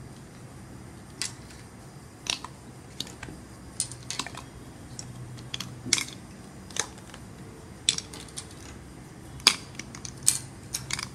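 Small plastic stationery pieces clicking and knocking as they are dropped one at a time into a hollow coconut shell: over a dozen sharp clicks at irregular intervals.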